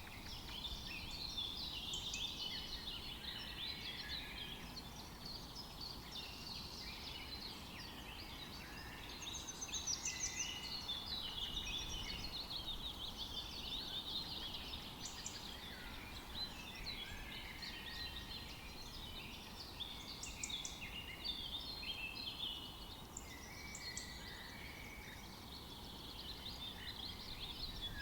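Several forest songbirds singing at once, a dense overlapping chorus of quick high chirps and trills, over a faint steady low background rumble.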